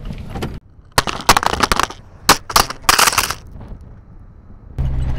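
Coarse sand and gravel crunching and crackling right at the microphone in loud, irregular strokes for about two and a half seconds. Before and after, the van's V10 engine runs low: briefly at the start, and again from near the end.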